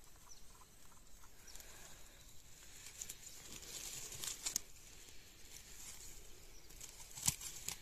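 Faint rustling of grass, moss and dry leaves as a hand moves through them, with two sharp clicks, the louder near the end.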